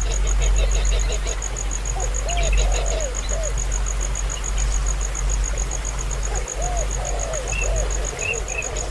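Insect, likely a cricket, trilling steadily in a high, even pulse of about ten beats a second. Groups of short arched calls come twice, and a few higher chirps come near the end.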